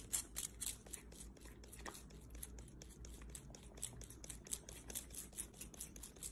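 A small grooming comb scratching through a cat's fur: a faint, rapid run of short scratchy strokes, several a second.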